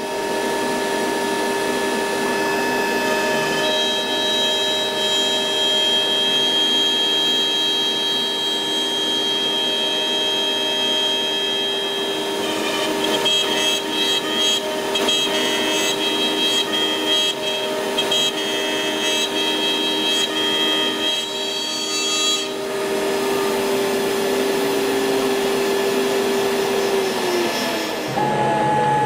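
CNC router spindle whining steadily while the bit mills pockets into a hardwood board, with rougher cutting noise in the middle. Near the end the whine slides down in pitch as the spindle winds down.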